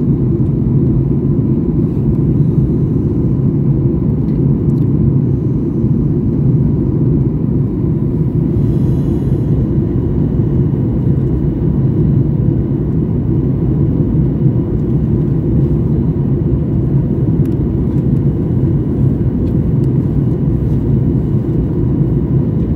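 Steady low roar of an airliner's jet engines and rushing air, heard from inside the passenger cabin.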